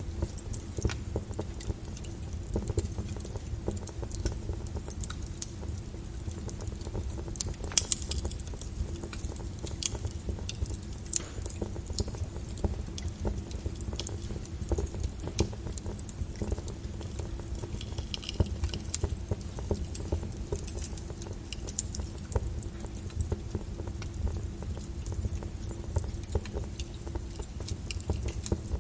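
Brown noise, a steady deep hiss, under a crackling fire with scattered sharp pops, one louder pop about eight seconds in.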